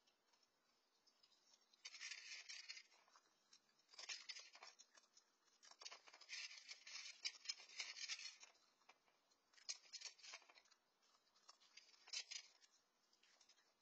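Raccoon crunching dry cat kibble close to the microphone, in bursts of chewing with short pauses between.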